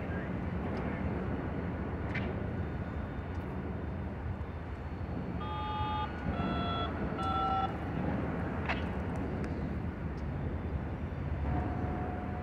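Diesel locomotives running in a rail yard, a steady low rumble. About halfway through, four short tones at different pitches sound in quick succession.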